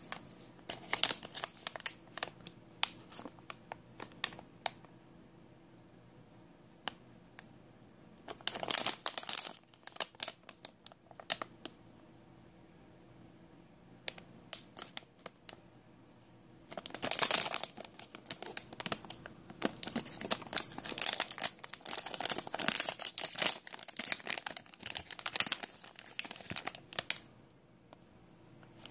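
Plastic blind-bag mini pack crinkling as it is handled and torn open, in bursts with quiet pauses between, the longest burst in the second half.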